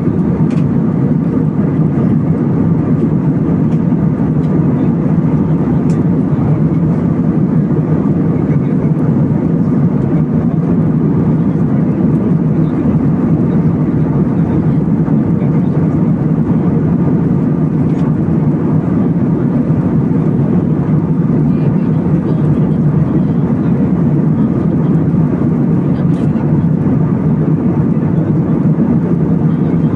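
Steady cabin noise of an Airbus A320 airliner in cruise: an even low rush of airflow and engine drone heard inside the cabin, holding constant in level and pitch.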